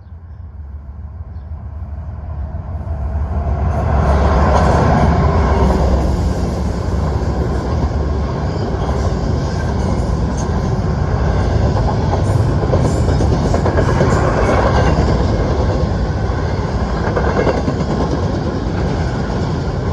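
Norfolk Southern freight train approaching and passing: the sound of the locomotives and wheels on rail grows louder over the first four seconds, then holds steady with a continuous rattle of the cars going by.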